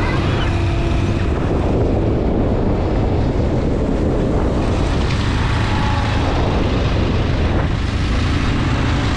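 Motorcycle riding along at steady speed: the engine's low running drone mixed with wind rushing over the microphone.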